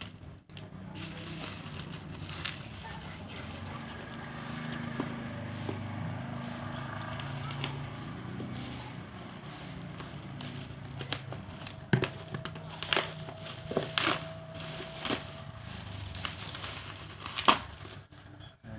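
Packaging being unwrapped and handled: crinkling and crackling of wrapping, then a run of sharp clicks and knocks in the second half as the box is opened.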